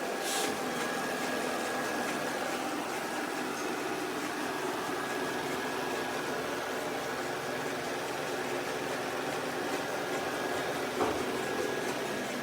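Steady whir of a robot vacuum's motor and suction fan running, with a few faint steady whining tones over it and a short click about eleven seconds in.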